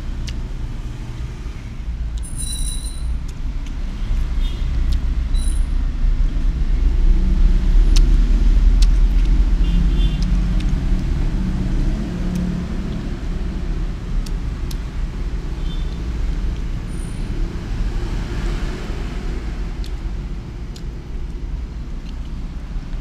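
Low rumble of road traffic, swelling to its loudest about a third of the way in and easing off, with scattered faint clicks of wooden chopsticks against the rice and paper wrapper.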